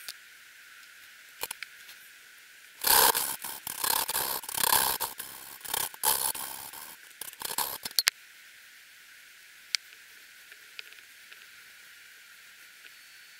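Valve being hand-lapped into its seat in a BSA A70L Lightning's alloy cylinder head: a lapping stick rolled back and forth between the palms turns the valve against the seat with grinding paste, giving a gritty, irregular scraping for about five seconds. It ends with a couple of sharp clicks.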